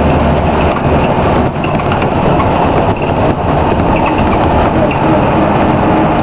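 Interior sound of a Scania K93CRB single-decker bus on the move, heard from a passenger seat: the six-cylinder diesel engine's steady drone mixed with road and body noise. The low engine hum eases about a second in.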